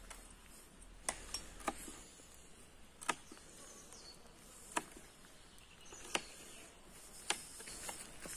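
Woodland ambience: a faint, steady, high insect hum, with sharp clicks at intervals of about one to one and a half seconds that are louder than the hum.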